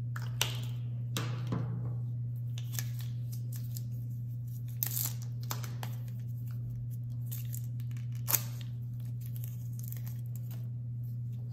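Plastic POSCA paint marker caps clicking on and off and markers being handled and set down on a wooden desk: scattered short clicks and taps, the sharpest about eight seconds in, over a steady low hum.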